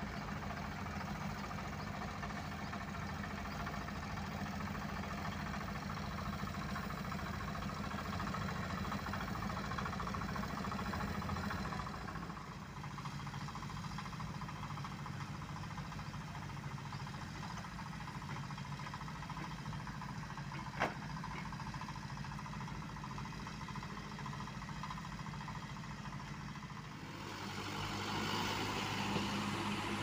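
Engines of road-paving machines, a dump truck and a trailer-mounted asphalt sprayer, then a dump truck and an asphalt paver, running steadily. The sound changes abruptly twice. A single sharp click comes about two-thirds of the way through.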